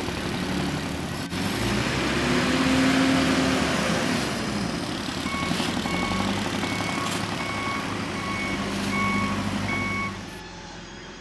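John Deere 310SG backhoe loader's diesel engine running and revving up, then its reversing alarm beeping about seven times, steadily spaced, while the machine backs up. The engine and beeping cut off near the end.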